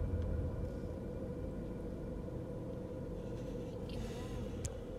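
Steady low hum and rumble inside a car's cabin while it creeps slowly forward, with one sharp click near the end.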